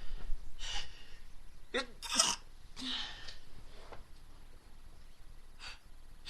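A woman's stifled sneeze about two seconds in, a short catch of the voice bursting into a sharp, breathy blast. Around it come breathy in-breaths and sniffs, and a fainter short burst near the end.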